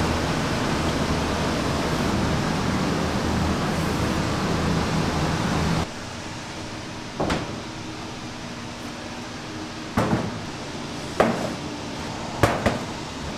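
A steady rushing noise with a low hum, kitchen ventilation, cuts off about six seconds in. After it, slabs of raw beef short rib are set down on a stainless-steel table and tray in five sharp knocks, the last two close together.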